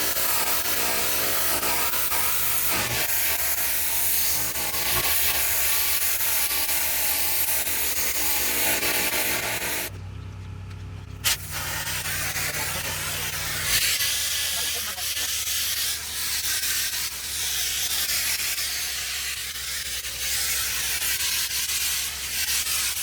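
Pressure washer spraying: a steady hiss of water over a low running hum. About ten seconds in, the spray stops for about a second and then comes back with a click.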